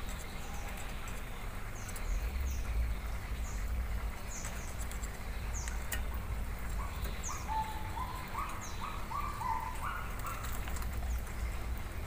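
Caged songbirds chirping: quick, high, down-slurred chirps repeat throughout, and about two-thirds of the way in a short run of lower whistled notes steps up and down in pitch.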